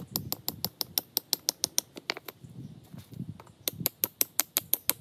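A tent stake being tapped into rocky ground: quick sharp clicks, about six a second, in two runs with a pause of about two seconds between.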